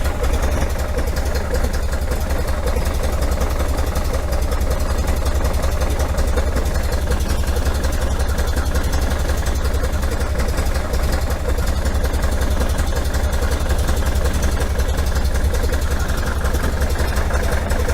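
1973 VW Super Beetle's air-cooled flat-four engine idling steadily.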